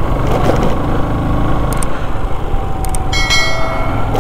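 Motorcycle engine running with steady wind and road noise while riding. About three seconds in, a click and then a bell-like ringing chime sound over it: the sound effect of a subscribe-button overlay.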